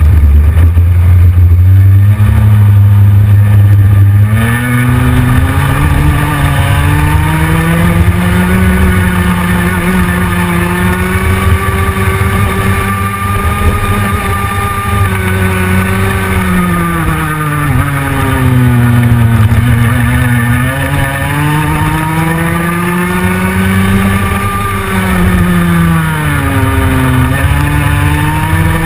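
Go-kart engine heard onboard, its pitch rising as it accelerates and dropping as it slows for corners, several times over; the deepest dips come about twenty seconds in and near the end.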